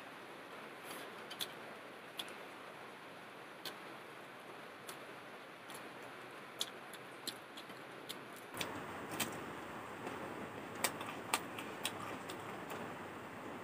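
Close-up eating sounds of a person eating soft khichdi-style rice by hand: irregular small clicks and smacks of chewing, more frequent in the second half, over a steady hiss.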